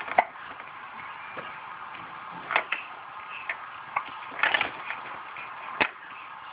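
A baby hiccupping: several short, sharp hiccups, irregularly spaced, the clearest about two and a half, four and a half and nearly six seconds in.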